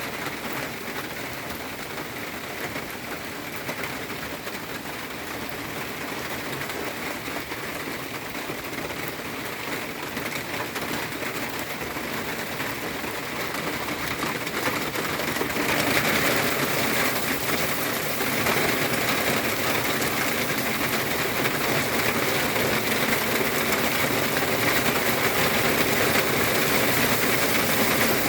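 Heavy rain pouring down steadily, turning noticeably louder and heavier a little past halfway through.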